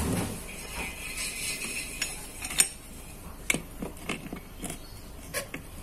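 Scattered metallic clicks and clinks of an open-end spanner on an angle grinder's flange nut as the disc is turned by hand. The spindle lock button won't catch, so the spindle keeps turning instead of locking.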